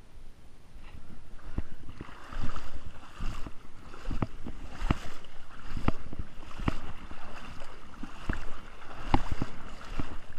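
Footsteps wading through shallow creek water, a splash with each stride, a little more than one step a second.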